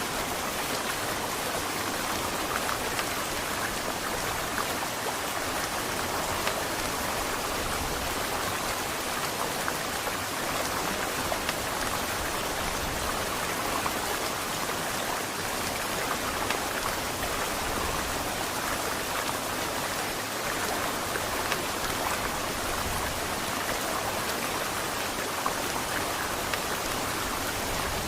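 Heavy rain falling steadily, with the small ticks of individual drops striking close by.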